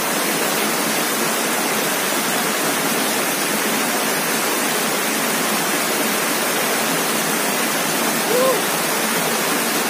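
Steady rushing of water pouring over a small rocky cascade into a shallow stream.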